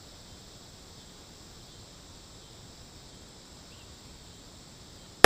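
Steady outdoor insect hum, crickets and the like, in a quiet lull, then one handgun shot right at the end, loud and sudden, its echo trailing off.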